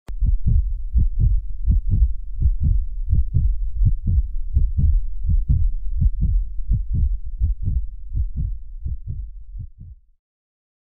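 Heartbeat sound effect: low, dull thuds in a quick steady rhythm, about three a second, fading away and stopping near the end.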